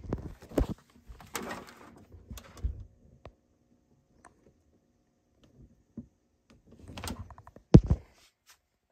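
Handling noise: scattered knocks, taps and rustles, with a loud double thump near the end.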